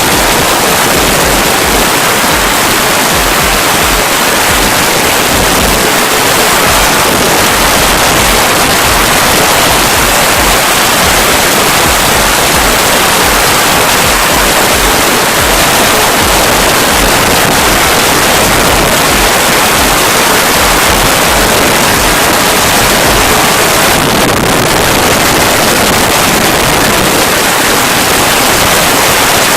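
Loud, steady wind noise buffeting the microphone of a moving vehicle, with a hiss that covers all pitches and an uneven low rumble.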